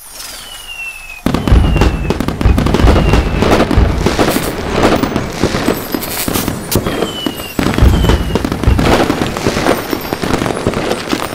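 Fireworks: whistling rockets with falling whistles, then a deep boom about a second in followed by dense crackling and popping bursts; a second boom and crackle comes near eight seconds in.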